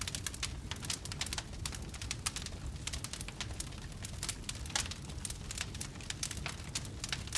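Campfire crackling: many irregular sharp snaps and pops over a low, steady rumble of the burning fire.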